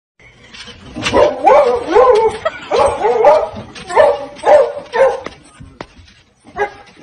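A small fluffy dog barking and yipping in a rapid run of high, pitched yips, about two a second, with a short break near the end before it starts again.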